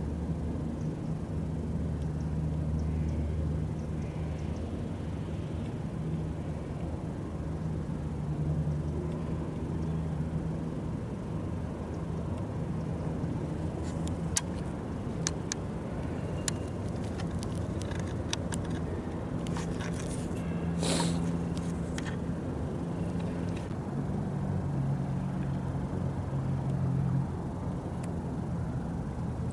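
A low, steady engine rumble, like vehicles running nearby, with a few sharp clicks in the middle and a short hiss about two-thirds of the way through.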